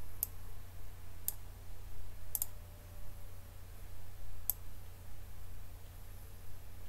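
Computer mouse clicking: single clicks about a second apart, a quick double click around two and a half seconds in, and one more click near four and a half seconds, over a steady low hum.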